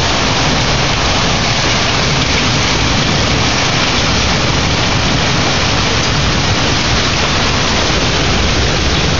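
Heavy rain pouring down steadily in a severe thunderstorm, a loud, even hiss of rain on surfaces.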